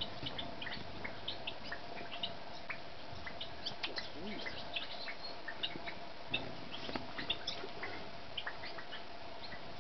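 Masked and Glossy Flowerpiercers at a plastic sugar-water feeder: many short, high ticks and chips, several a second and irregularly spaced, over a faint steady hum.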